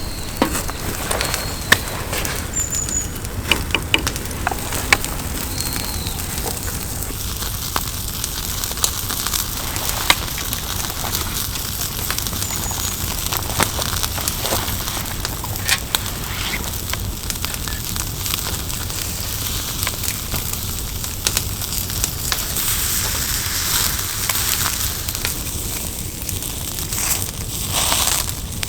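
Wood campfire crackling, with irregular sharp pops.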